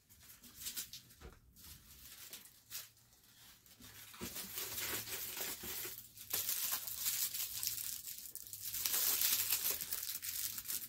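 Packaging rustling, crinkling and tearing as the next item is unwrapped. Faint for the first few seconds, then louder from about four seconds in.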